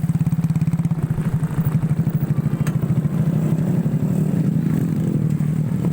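Motorcycle engine of a homemade ATV running steadily, a rapid even putter.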